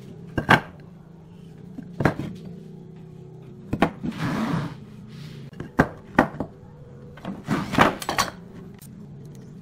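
A series of sharp wooden knocks and clatters as pine boards and a metal combination square are set down and shifted on a wooden workbench, with a brief scrape of wood sliding on wood about four seconds in.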